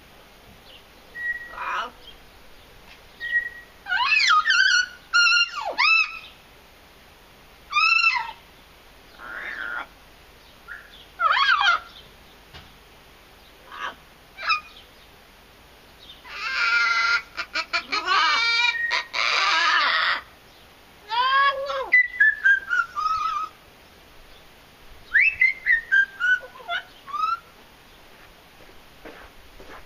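Blue-fronted amazon parrot calling in short bouts of whistled notes that sweep up and down. About halfway through there is a longer harsh screech, and near the end come falling whistled phrases.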